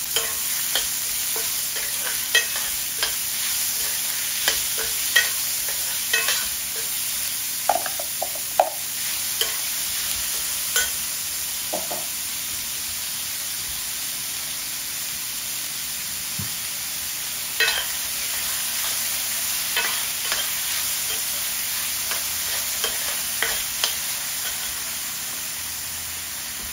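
Chopped onion frying with spices in sesame oil for a tempering (thalippu): a steady sizzle, stirred in the pan, with irregular clicks throughout.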